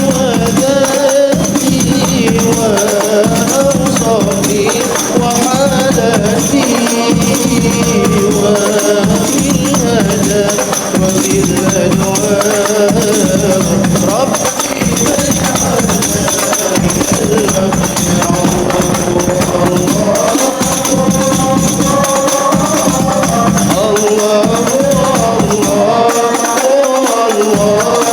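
A hadroh ensemble performs a sholawat: a voice sings an ornamented, wavering Arabic devotional melody over a steady rhythm of hand-struck frame drums.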